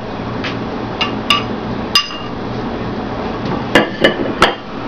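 Metal serving spoon clinking against a ceramic casserole dish and bowl while food is dished up: several sharp clinks, a few of them ringing briefly, with a cluster of three close together near the end.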